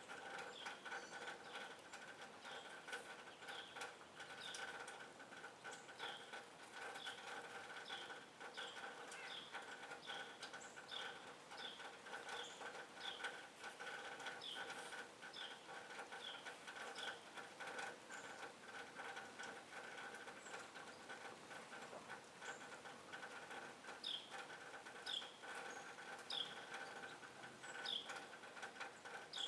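A small songbird calling over and over with short, high, down-slurred chips, about one to two a second, louder near the end.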